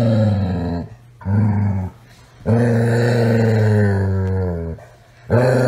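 Doberman growling in a string of long, low, drawn-out grumbles while being stroked, each held at a steady pitch, the longest about two seconds.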